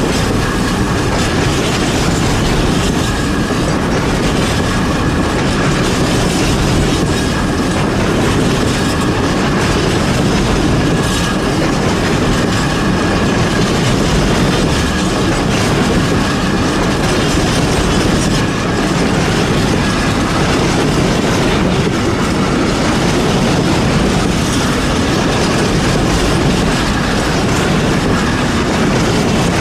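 Container wagons of an intermodal freight train rolling past steadily, wheels clacking over the rail joints, with a faint steady squeal.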